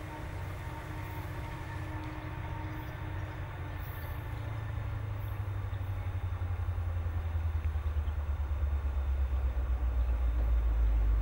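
Distant G class diesel-electric locomotive hauling a freight train, approaching head-on: a low engine drone that grows steadily louder as it nears.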